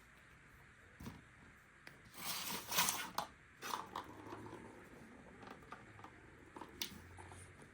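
Kittens playing with toys: a scuffle of rustling and scratching about two seconds in, with scattered light knocks and clicks before and after.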